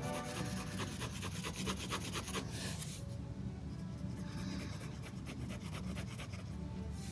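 Fine-tip ink drawing pen scratching across sketchbook paper in rapid short hatching strokes. A longer, louder scrape comes about two and a half seconds in, then softer strokes follow.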